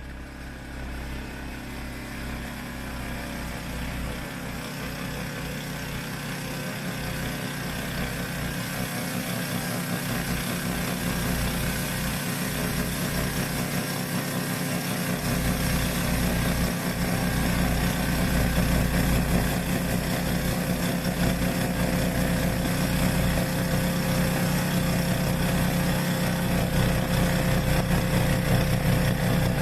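Yamaha YT1070 tracked snowblower's engine running steadily, growing gradually louder over the span.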